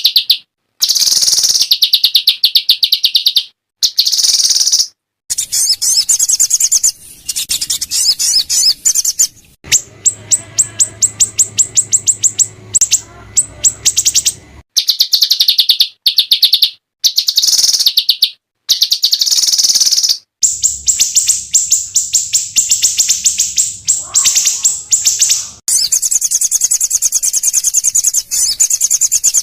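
Small songbirds giving rapid strings of harsh, high-pitched chattering notes: a spliced masteran recording of rough 'tembakan' calls from several species, in bursts that break off abruptly.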